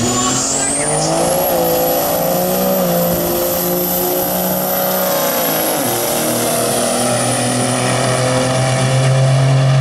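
Two Dodge pickups with Cummins turbo-diesel engines launching side by side down a drag strip at full throttle. A high-pitched turbo whistle rises at the launch and holds with the engine note, and the pitch drops about six seconds in.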